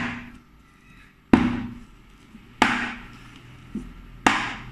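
A pan of chocolate cake batter knocked down on a hard surface four times, roughly every second and a half, each a sharp knock with a short ringing tail: tapping the batter to release air bubbles before baking.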